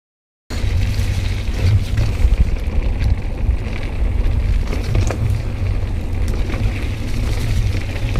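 Mountain bike descending a rough, muddy trail at speed, heard through a GoPro's microphone: a heavy low rumble of wind and jolting, with scattered clicks and knocks from the bike rattling over the ground. The sound cuts in suddenly about half a second in.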